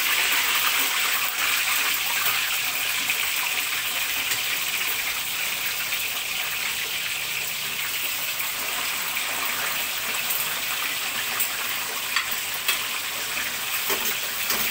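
Catfish pieces frying in hot oil in a wok: a steady, dense sizzle, strongest at first and easing slightly, with a few sharp crackles near the end.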